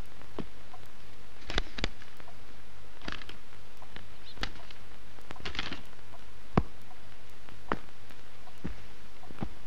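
Pages of a hardback book being leafed through: a few brief paper rustles over a steady hiss and hum, with scattered small clicks.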